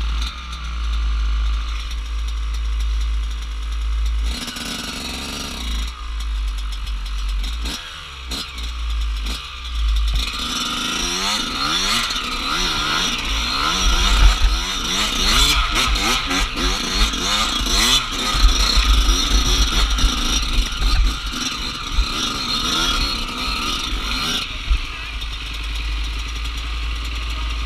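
Dirt bike engine revving up and down as it is ridden, with a heavy wind rumble on the microphone. From about ten seconds in, the engine rises and falls in pitch over and over, then settles steadier near the end.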